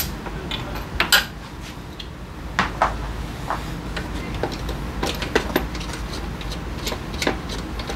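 Irregular metallic clicks and clinks of hand tools at work on the engine during a spark plug change, over a steady low hum.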